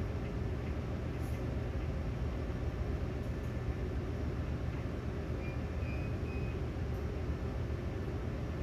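Steady low drone of a ship's machinery.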